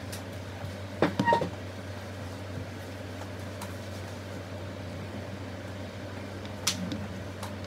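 Handling noises from a small plastic LOL Surprise doll having its clothes fitted on: a short cluster of clicks with a brief squeak about a second in, and two more light clicks near the end, over a steady low hum.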